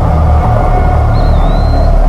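Pachyrhinosaurus creature sound effect: a loud, low rumbling growl, with a thin, wavering whistle-like tone joining about a second in.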